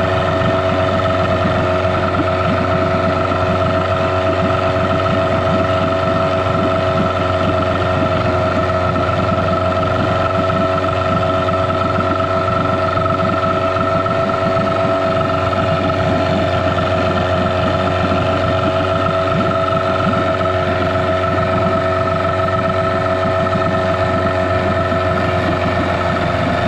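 Yamaha 6 hp two-stroke outboard motor running steadily with its lower leg in a drum of water, a constant even engine note that holds for the whole stretch.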